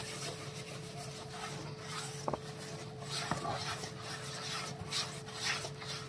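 A hand rubbing and scraping a dry herbal powder and gram-flour mix around the bottom of a plastic tub. It makes a faint, repeated gritty scratching, stroke after stroke.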